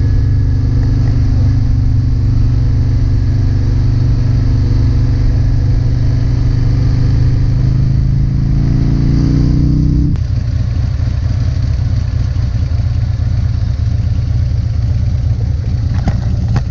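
Harley-Davidson V-twin motorcycle engine running under way, its note climbing slightly and then dropping off about ten seconds in to a lower, rougher rumble as the throttle comes back.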